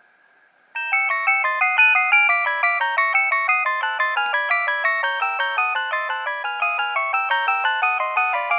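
Nokia 3100 mobile phone playing one of its original ringtones through its loudspeaker. It starts suddenly about a second in: a fast electronic melody of several notes sounding at once, about four notes a second.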